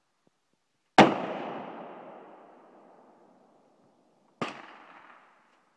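Rifle gunfire: a loud Mosin-Nagant 7.62×54R shot about a second in, its report trailing off over about two seconds, then a second, quieter shot about three seconds later.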